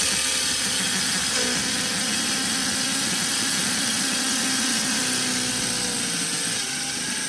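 Power drill running at speed with a step drill bit cutting through a stainless steel stove wall, steady throughout, then stopping suddenly at the end.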